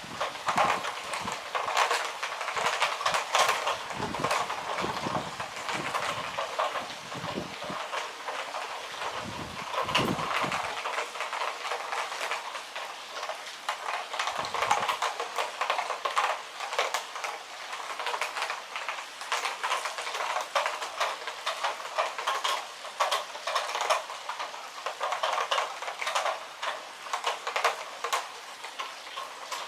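Heavy rain falling during a thunderstorm, a dense, steady crackle of raindrops striking a hard surface close by, with a few low thumps in the first ten seconds and again about fifteen seconds in.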